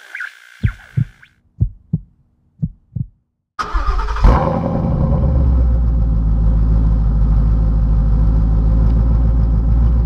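Three pairs of low thumps like a heartbeat, then a Ford Mustang GT's 5.0-litre V8 starts with a quick blip of revs and settles into a steady, rumbling idle.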